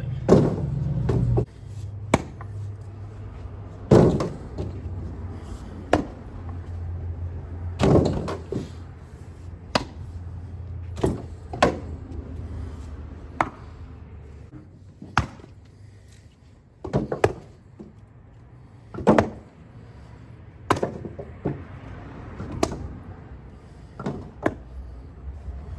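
Firewood being pulled and handled: about twenty sharp wooden knocks at uneven intervals, one every second or two, as a long-handled tool made from a reprofiled axe head strikes into the split logs and the pieces knock together.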